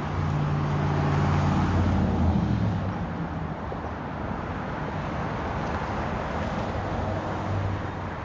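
Road traffic: a motor vehicle's engine runs close by, loudest in the first two or three seconds, then fades into steady traffic noise.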